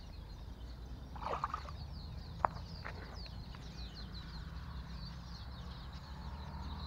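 A brief splash in shallow lake water about a second in as a released traíra swims off. A sharp click follows about a second later. Under it run a steady low rumble and constant high bird twittering.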